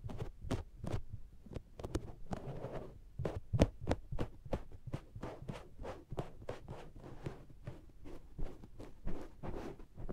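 Makeup sponge patted and pressed against the ears of an SR3D binaural microphone, a few sticky, suction-like pats a second, each with a low thump. A short stretch of soft rubbing comes about two seconds in.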